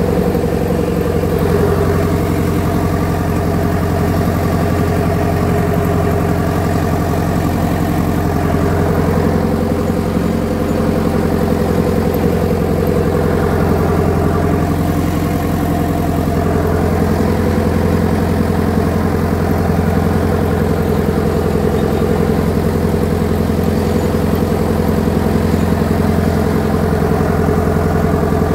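Ford Major tractor engine running steadily at low, even revs, held in low gear on a slow descent.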